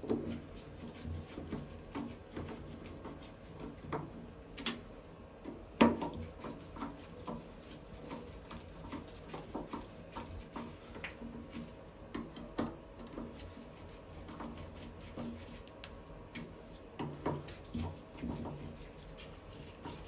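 Scattered small clicks, taps and scrapes of a screwdriver and the valve's plastic and metal parts being fitted back into a Kohler 8304 thermostatic shower valve body by gloved hands. The sharpest click comes about six seconds in.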